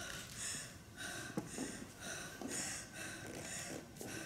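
A girl panting in quick, breathy gasps, about two a second, acting out a sudden heart pain.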